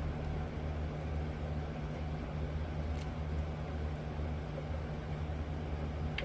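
Steady low mechanical hum over a light hiss, with one sharp click about halfway through.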